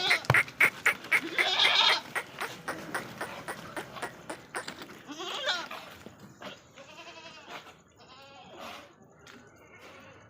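Goats bleating, several wavering calls one after another, loudest in the first couple of seconds and fainter toward the end, with short clicks and knocks in the first half.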